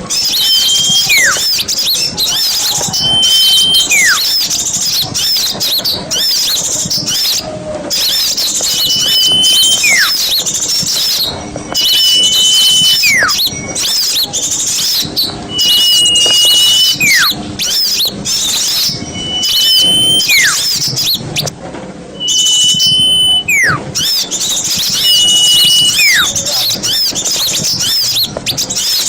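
Small songbirds singing in a dense, rapid high chatter, with a repeating whistled phrase about every three seconds: a short level whistle, then a quick falling slur. This is a masteran recording of small-bird song, played to train competition cage birds.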